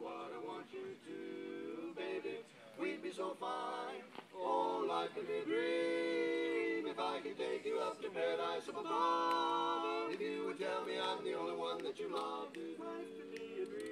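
A male vocal quartet singing a cappella in close harmony, with long held chords that swell louder partway through.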